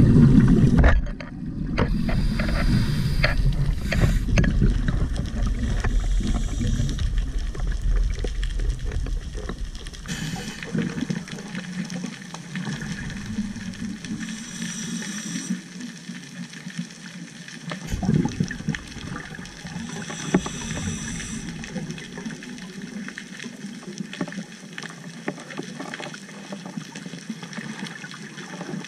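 Muffled underwater ambience heard through a sealed GoPro housing, with a scuba diver's exhaled regulator bubbles rushing past a few times and a single knock about two thirds of the way through. A heavy low rumble at the very start drops away after about a second.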